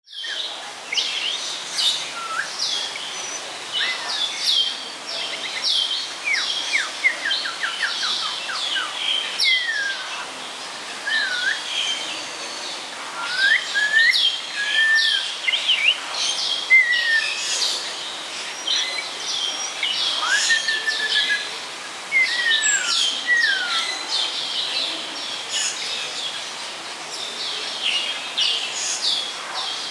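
Snowy-crowned robin-chat singing: a continuous run of varied short, rapid high chirps and trills, broken by lower slurred, falling and rising whistled phrases.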